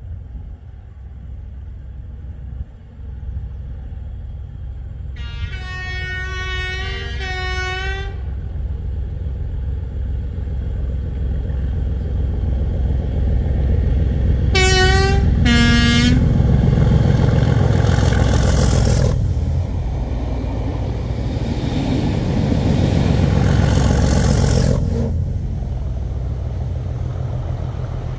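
Two Class 37 diesel locomotives with English Electric V12 engines approaching and passing underneath. One sounds its two-tone horn in a long blast about five seconds in, then in two short blasts, high then low, around fifteen seconds. The engine clatter swells to two loudest stretches as the locomotives pass and then fades.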